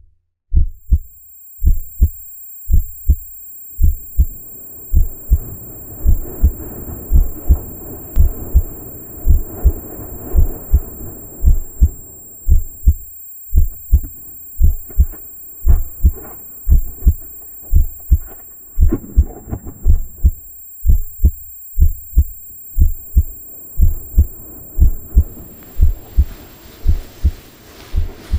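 Heartbeat sound effect: low double thumps repeating about once a second. A low rushing noise swells and fades behind it, and a hiss joins near the end.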